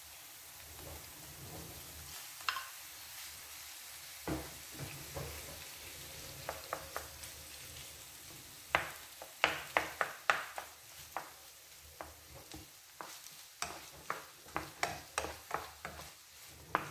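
Diced chicken and onions sizzling faintly in oil in a non-stick frying pan, with a thump about four seconds in. From about halfway, a wooden spoon stirs them, clicking and tapping against the pan in quick clusters.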